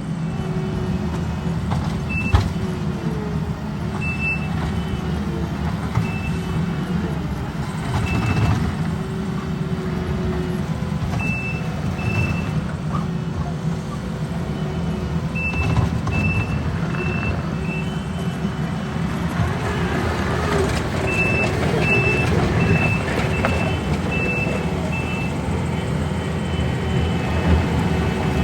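Heavy construction equipment's diesel engine running steadily, with a reversing alarm beeping in short spells as the machine backs up. Near the end the beeps come as a regular run of about one and a half a second. A single sharp clank sounds about two seconds in.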